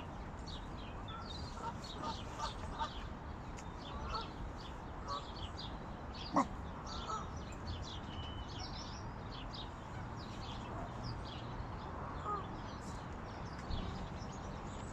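Birds chirping and calling, with occasional duck calls, over a steady low background rumble. A single sharp click about six seconds in is the loudest sound.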